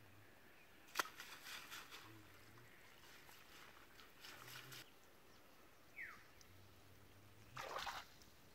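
Shallow, muddy water splashing and sloshing as hands grope through it inside a fishing net. It comes in short bursts: a sharp splash about a second in, more around four seconds, and a longer burst near the end.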